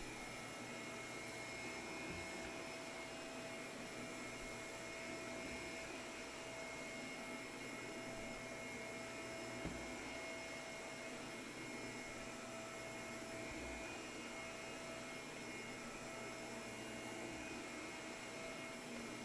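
Shark vacuum cleaner running steadily over carpet: a steady motor whine over a rush of air, with one short knock about ten seconds in.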